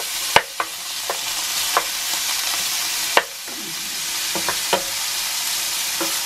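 Diced meat sizzling steadily as it browns in a hot non-stick frying pan, with irregular knocks and scrapes of a wooden spatula against the pan as the pieces are turned; two knocks, about half a second and about three seconds in, are the loudest.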